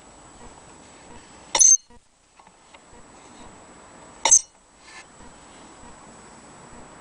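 Two sharp, ringing clinks, like hard objects knocking together, about two and a half seconds apart.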